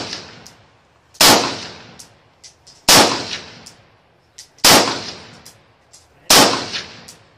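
AR-15-style rifle firing four shots about a second and three-quarters apart, each crack followed by an echo that dies away, with faint ticks between the shots.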